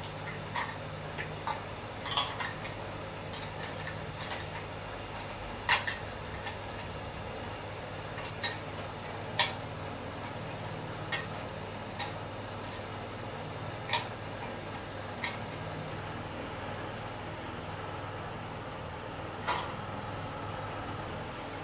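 Irregular light clicks and clinks of metal and plastic parts being handled and fitted together while assembling a sewing machine thread stand, the loudest about six seconds in, over a steady low hum.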